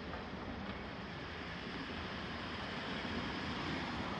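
Steady rush of road traffic, growing slightly louder.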